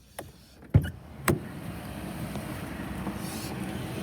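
A car door shuts with a heavy thump, a sharp click follows, then a car engine runs steadily, growing a little louder.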